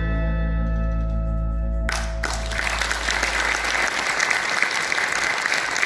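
A band's last held chord, with pedal steel guitar and bass, rings steadily and cuts off about two seconds in. Audience applause follows and lasts to the end.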